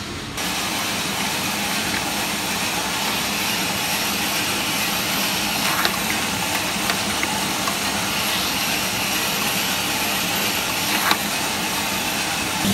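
Small drum coffee roaster running with a batch of robusta beans tumbling inside: a steady rushing noise, with a few brief clicks.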